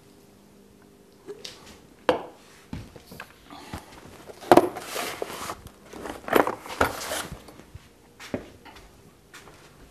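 Irregular knocks and clatter of hard objects being shifted and set down on a wooden workbench, with the loudest bang about halfway through.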